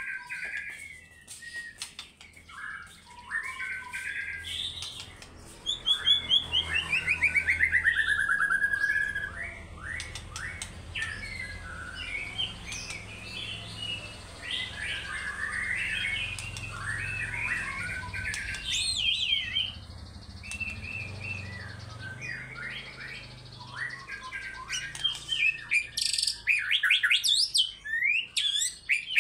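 White-rumped shama singing a long, varied run of whistles and chattering phrases. About six seconds in comes a long trill falling in pitch, and the phrases grow quick and dense near the end. A faint low hum runs underneath for most of it.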